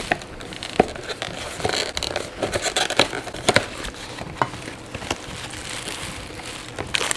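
Cardboard fried-chicken takeout box being opened by hand: the flaps scrape and fold back and a paper bag inside crinkles, with scattered light clicks and taps.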